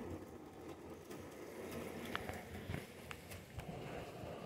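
G-scale model train's die-cast metal wheels rattling and clicking along the track as the train runs slowly by, with a few sharper ticks about two to three and a half seconds in.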